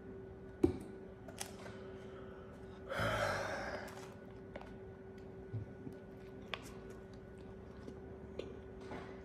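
A person takes a sharp breath, a gasp or sigh, about three seconds in. A single sharp click comes about half a second in, and a few small clicks and a faint steady hum run underneath.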